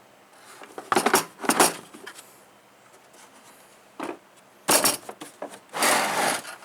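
Handling noises from tools and gear being moved: about five short scraping, rubbing and clattering bursts, the longest near the end.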